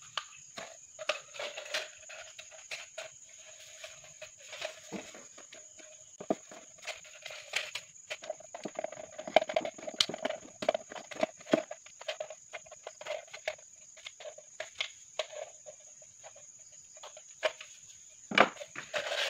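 Thin aluminium drink can clicking, crinkling and scraping as a rolled can-metal divider is pushed and worked into it with a small metal tool: a scatter of sharp clicks, the loudest about ten seconds in. A cricket trills steadily behind.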